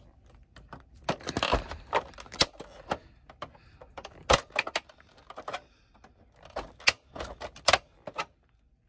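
Plastic casing of a broken game console clicking and snapping as it is pried apart by hand: irregular sharp clicks of the case's plastic, the loudest about four seconds in and near the end.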